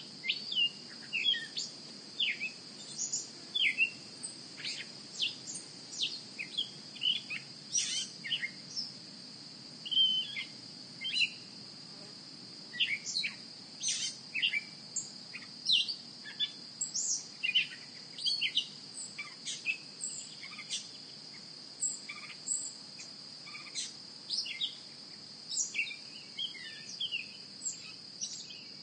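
Outdoor nature ambience: many short bird chirps and calls, scattered irregularly, over a steady high-pitched insect drone.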